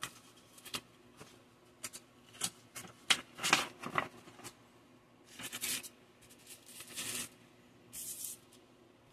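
Sheets of wet/dry aluminium oxide sandpaper rustling and scraping as gloved hands shuffle them and slide them against each other: a run of short crinkles, then a few longer rubbing passes in the second half.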